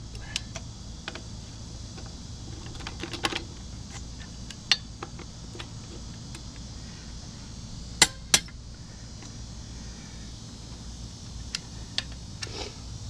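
Click-type torque wrench set to 110 ft-lb, giving sharp clicks as lug nuts reach torque, among light metallic clinks of the socket and extension. Two loud clicks come close together about eight seconds in.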